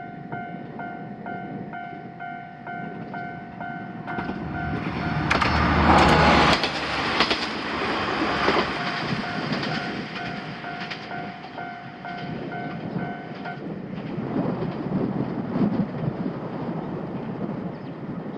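Japanese level crossing's electronic warning bell ringing about twice a second while a train passes over the crossing with a rush of wheel-on-rail noise, loudest about six seconds in. The bell stops about thirteen seconds in, leaving fainter rumbling and knocks.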